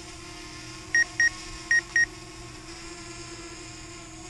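Four short, high electronic warning beeps in two quick pairs from a DJI Spark drone's controller app, over the steady hum of the hovering drone's propellers. They are the kind of alert the pilot is getting because the battery is too cold.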